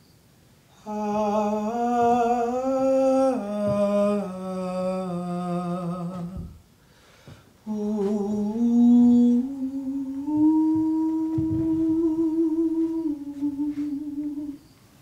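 A single voice humming a slow wordless melody in two phrases of long held notes, with a short break of about a second in the middle.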